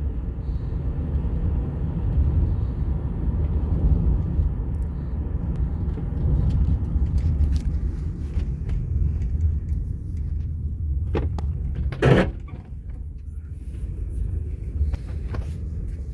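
Car on the move with a steady low rumble from its wheels, which the uploader puts down to tyres needing replacement after a collision. A brief louder noise about twelve seconds in.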